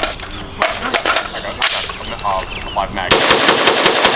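Semi-automatic rifle gunfire on an outdoor range: a few single shots in the first two seconds, then from about three seconds in a rapid run of overlapping shots, as from several shooters firing at once.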